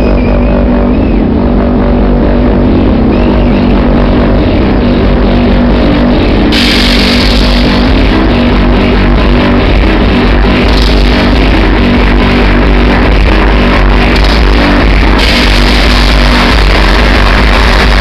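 Loud techno DJ set played over a festival PA, with heavy bass and a steady beat. The high end cuts in suddenly about six seconds in, fades back, then returns near the end.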